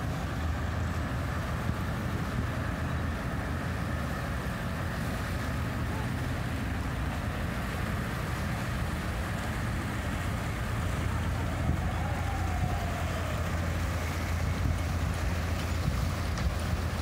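Steady low rumble of a boat's engine, growing a little louder near the end.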